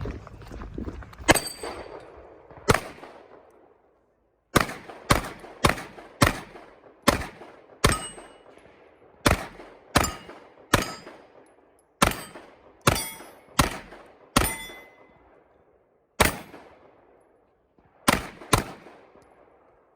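A string of about nineteen gunshots fired at an uneven pace, mostly half a second to a second apart, with a pause about three seconds in. Several shots are followed by the short metallic ring of hit steel targets.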